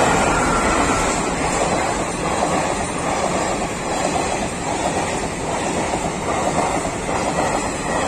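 Electric-hauled passenger train passing close by, the locomotive and then its coaches' wheels running on the rails in a loud, steady noise.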